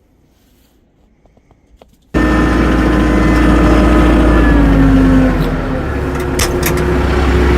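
After about two seconds of near-quiet with a few faint ticks, a tractor engine starts sounding abruptly and loudly and runs steadily. Its pitch drops a little partway through as the revs ease off. A few sharp clicks come near the end.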